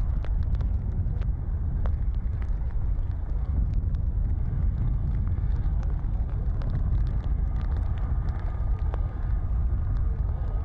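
Erupting spatter cone's lava fountain making a steady low rumble, with scattered sharp crackles and pops of spattering lava throughout.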